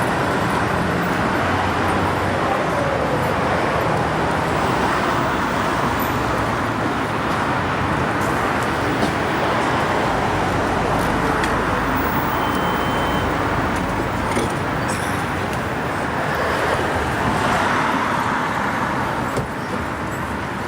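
Steady street noise dominated by passing road traffic, a continuous even rush without distinct events.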